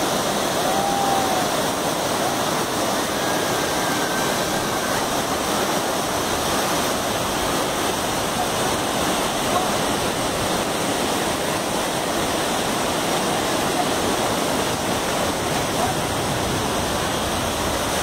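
Tall cascading waterfall pouring over rock into its pool: a loud, steady rush of falling water that does not change.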